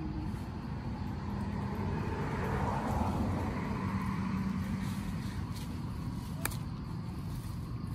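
A motor vehicle passing, its engine and road noise swelling to a peak about three seconds in and then fading. A single sharp click comes later.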